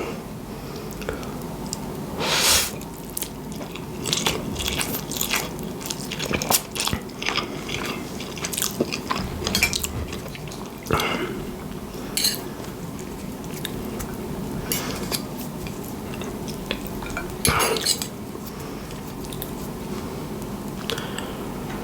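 Close-miked eating of spaghetti bolognese: a fork clinks and scrapes on the plate again and again, between mouthfuls of chewing.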